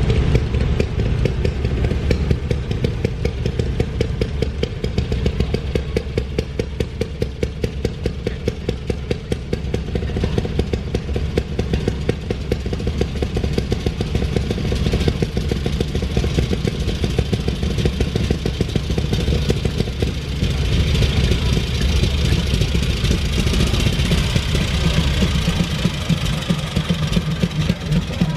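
Railroad speeders (small track motorcars) running along the rails, their small engines firing in a rapid, even beat as they roll in one after another.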